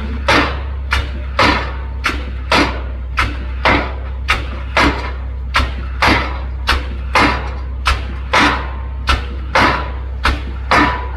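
Pile driver hammering a pile: sharp, evenly spaced blows, a little under two a second, over a steady low engine hum.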